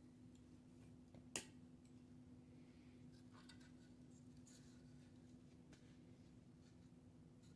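Near silence with a steady low hum. There is one sharp click about a second and a half in, then a few faint ticks as the wooden board is handled.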